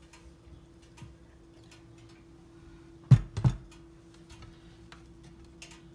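Plastic ketchup squeeze bottle squeezed over a wrap: two dull, wet squirts about a third of a second apart, among faint clicks of handling.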